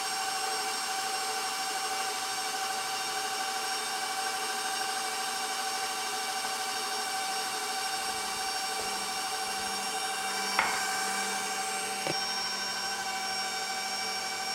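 Electric stand mixer running steadily at low speed, its motor giving a constant whine while the beater turns through chocolate cake batter as flour is stirred in. Two brief light clicks come about two-thirds of the way through.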